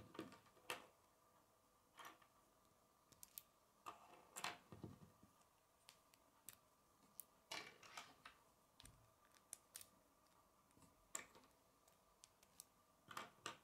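Plastic K'nex pieces clicking and tapping as connectors and a spacer are handled and slid onto a rod: faint, irregular clicks, a few of them louder.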